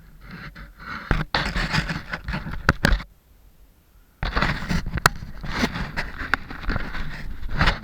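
Scraping and rubbing noise with sharp clicks, in two stretches that start and stop abruptly, the second beginning about four seconds in.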